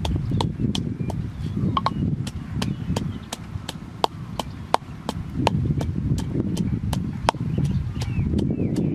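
Wooden pestle pounding red chillies and garlic in a mortar: a steady knocking about three times a second, each stroke a sharp click over a dull thud.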